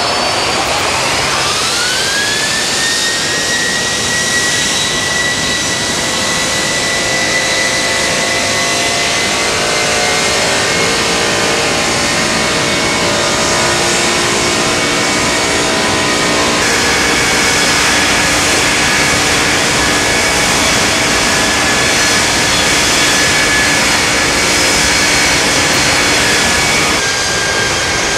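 Jet engines of an MD-10 freighter running on the ground during an engine run-up test: a whine that rises over the first few seconds and then holds steady over a loud, continuous rushing noise, with the whine's pitch shifting slightly about two-thirds of the way through.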